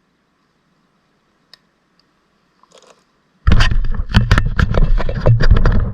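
Near silence with one faint click, then about three and a half seconds in, loud close footsteps start crunching and scraping through dry leaves and brush right at the microphone.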